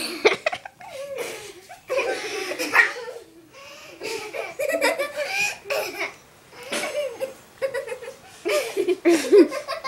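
People giggling and trying to hold in their laughter: breathy snickers in short bursts that keep breaking out, loudest near the end.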